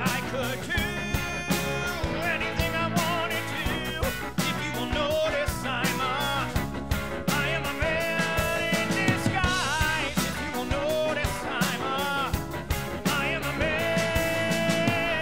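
Rock band music from a stage musical: drums keep a steady beat under a wavering lead melody with bending, held notes.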